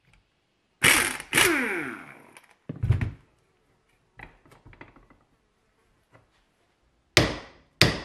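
Air impact wrench firing two short bursts on a ball-joint nut of a Saab 900 front steering knuckle, the second winding down in falling pitch after the trigger is released, then the wrench set down on the bench with a thunk. Near the end, two sharp hammer blows on the knuckle clamped in a vise.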